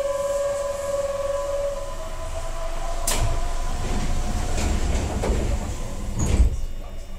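Keihan 9000 series train's passenger doors closing: a steady warning tone for the first two seconds, then the sliding doors running shut with clicks and a rumble, ending in a thud about six seconds in.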